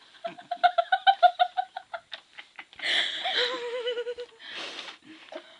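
Girlish giggling: a quick run of short, high-pitched laughs, then a breathy laugh that trails into a long wobbling note.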